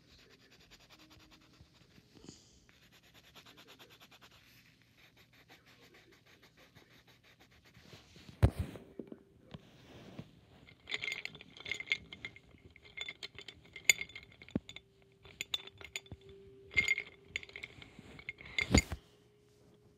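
Coloured pencils scratching on paper and being handled: faint scratching at first, then a loud knock about eight seconds in, followed by a run of quick scratchy clicks and clinks, with another loud knock near the end.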